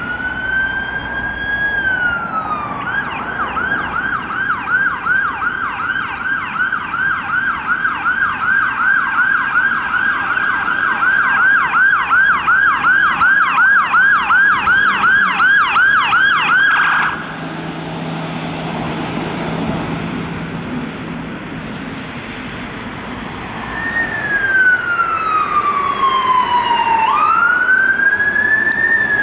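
UK emergency vehicle electronic sirens. A slow wail comes first, then a fast yelp at about three sweeps a second that cuts off suddenly after about seventeen seconds. A vehicle engine runs in the quieter gap, then a slow wail falls and rises again near the end.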